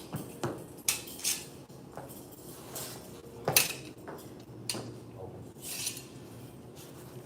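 Irregular metallic clinks and clacks of a pair of butterfly knives knocking together as a form is practised, several sharp strikes spread unevenly, the loudest about three and a half seconds in.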